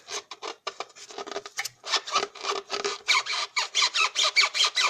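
Rubbing creak from a Hyundai's rear strut, where an aftermarket rubber dust boot and bump stop rasp against each other as the loaded rear of the car is rocked. Rapid repeated creaks, louder from about two seconds in. The squeak heard in the cabin seems to come from a bushing but comes from these bump stops.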